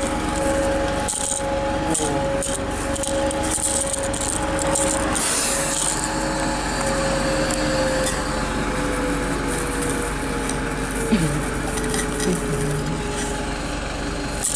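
Bus engine running with a steady mechanical whine that slowly drops in pitch over several seconds, with rubbing and rustling in the first five seconds.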